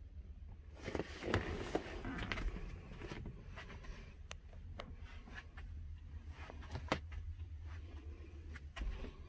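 Scattered light clicks and knocks over a low steady rumble, from someone moving about a boat cabin and handling the camera; the sharpest knock comes near 7 seconds in.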